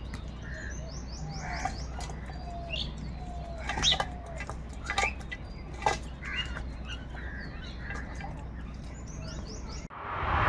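Crows cawing among quick runs of high chirps from smaller birds, over a steady low hum. Near the end a loud whoosh cuts in suddenly.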